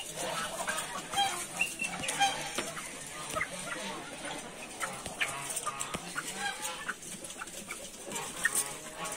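Pheasants in an aviary clucking and chirping, many short calls scattered throughout, with a few light knocks from a galvanized metal feeder being handled.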